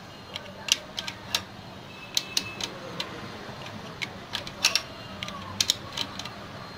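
Irregular sharp metallic clicks and taps of spanners working the brake adjuster bolt on a Honda Activa scooter's drum brake, as the brake is tightened. A low steady hum runs underneath.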